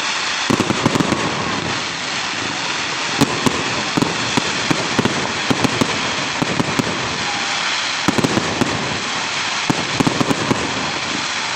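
Fireworks going off: a steady crackling hiss with quick clusters of sharp bangs, the thickest about half a second in and again around eight and ten seconds in.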